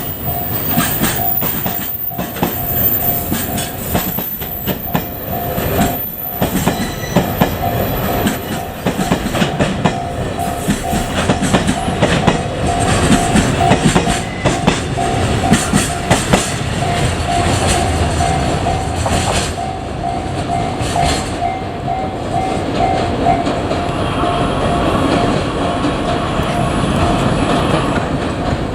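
A freight train rolling past over a level crossing, its wheels clattering steadily over the rail joints. A level-crossing warning bell rings in a fast repeating tone over it and stops about two-thirds of the way through.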